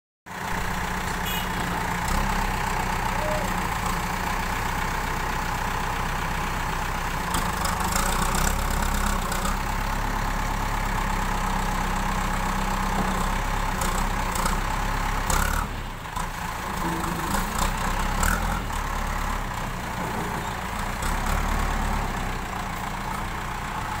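JCB backhoe loader's diesel engine running steadily under load as the front bucket scoops and lifts soil, with a few short clatters around eight seconds in and again around fifteen.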